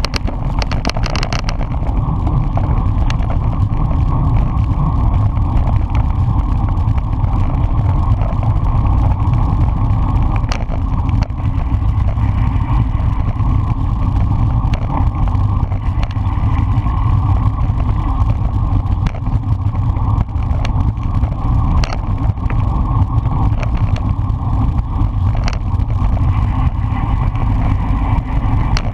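Wind buffeting the microphone of a bicycle-mounted camera at race speed, a steady loud rumble mixed with the hum of road-bike tyres on asphalt, with a few brief sharp clicks.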